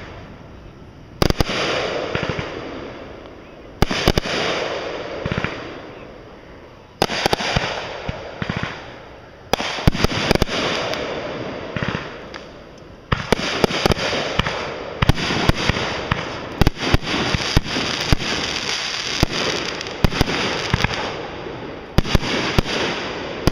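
Fireworks going off, a sharp bang every few seconds, each followed by a long crackling fizz that dies away. Bursts crowd together in the second half, with many rapid pops overlapping.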